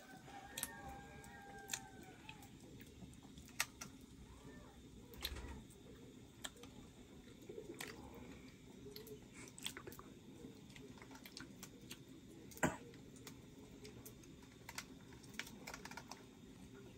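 Irregular sharp clicks and small cracks of crunchy food being broken apart by hand and chewed, with one louder crack about three-quarters of the way through.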